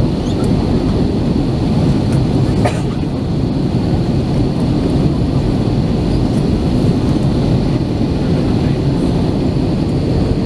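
Steady, loud cabin rumble of an Airbus A321 with CFM56-5B engines, heard from a rear window seat.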